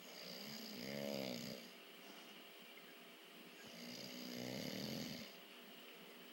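A sleeping person snoring: two snores about three and a half seconds apart, each lasting over a second and wavering in pitch.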